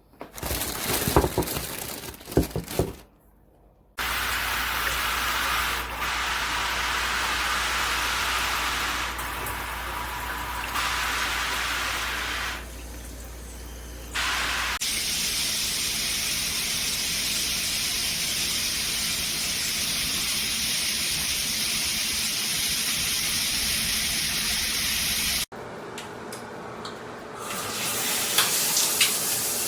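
Water spraying steadily from a handheld shower head, its sound changing character a couple of times and stopping abruptly once before starting again. A few sharp knocks of handling come in the first seconds.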